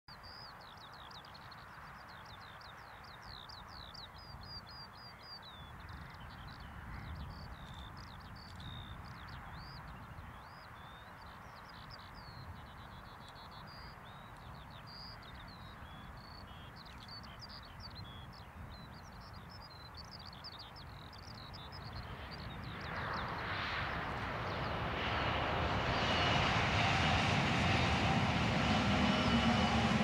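A skylark sings a continuous, rapid warbling song of high chirps over a low background noise. Near the end a Stadler FLIRT Class 745 electric multiple unit approaches at speed and grows loud, with a steady high whine, drowning out the lark.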